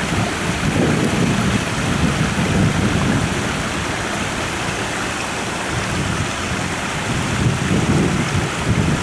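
Water rushing steadily from a small concrete spillway into the river, with uneven low rumbles through it.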